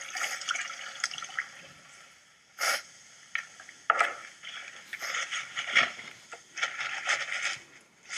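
Liquid poured from a plastic soda bottle into a glass, a splashing, hissing pour that comes and goes, with a few sharp knocks of bottle or glass on the counter.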